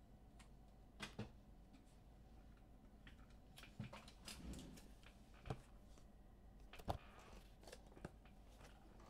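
Near silence: room tone with a few faint clicks and taps from small handling noises.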